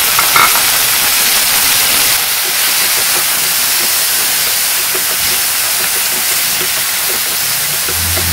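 Chopped tomatoes and onions frying in hot oil in a nonstick pan: a loud, steady sizzle as they are stirred with a wooden spatula.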